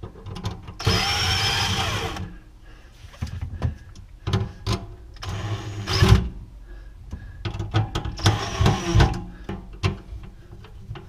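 Cordless impact driver run in three short bursts with a steady whine, driving the mounting screws of a garbage disposal's mounting ring up against the sink flange. Sharp clicks and knocks of handling come between the bursts.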